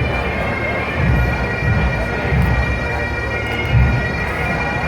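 A massed pipe band of bagpipes and drums playing: steady bagpipe drones and chanter melody over regular bass drum beats.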